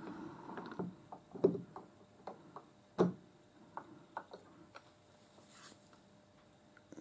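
Scattered faint clicks and taps of small metal parts of a lathe live centre being handled in gloved hands while a bearing is packed with grease, with two louder knocks about a second and a half and three seconds in.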